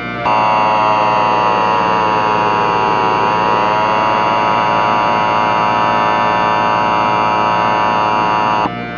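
Emergency-alert attention tone: a loud, steady, harsh buzzing alarm tone that holds for about eight seconds and cuts off abruptly near the end. A fainter tone within it slides down and back up about three seconds in.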